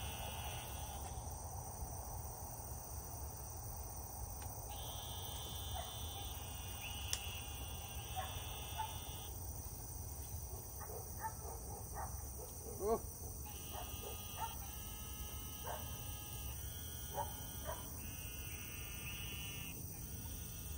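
Outdoor summer insect chorus: a steady high-pitched drone, with repeated calls between about 1.5 and 4 kHz, each lasting a second or two, and a few faint short clicks.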